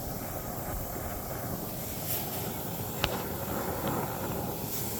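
Gas soldering torch flame burning with a steady rushing hiss, with one sharp metallic click about three seconds in.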